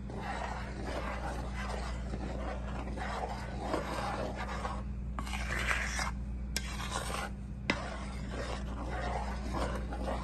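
A spatula stirring heavy cream into a thick tomato gravy, scraping against the bottom and sides of a large pan in uneven strokes. A couple of light clicks come about two-thirds of the way in, over a steady low hum.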